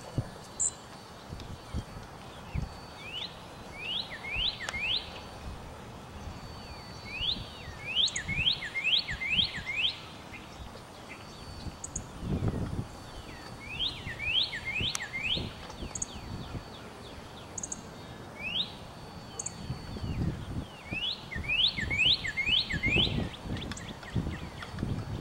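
A songbird singing phrases of four to six quick downward-slurred whistles, a phrase every few seconds, with short high notes between. Low irregular rumbles come and go beneath, strongest near the end.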